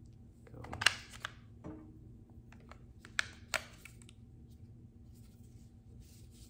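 Handling noise from a Sennheiser XS Wireless 1 handheld microphone transmitter being worked open in the hands: a rustle and clatter about a second in, then two sharp plastic clicks a little after three seconds.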